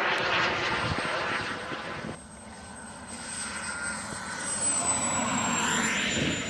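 Small turbine engine of an RC jet running in flight: a rush of engine noise with a steady high whine, dropping off abruptly about two seconds in, then building again as the jet makes a pass near the end.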